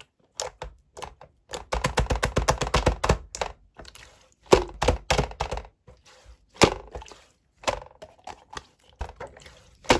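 Pink clear slime being pressed and squished by hand, giving sticky popping clicks. There is a quick run of pops about two seconds in, then single pops at intervals.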